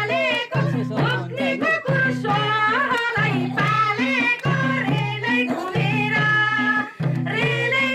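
Music: a voice singing a wavering, ornamented melody over a steady, evenly repeating low beat.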